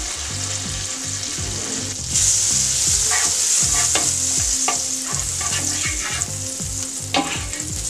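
Butter melting and sizzling in a hot frying pan, the sizzle growing louder about two seconds in as a wooden spatula stirs it around. There are a few light clicks of the spatula against the pan.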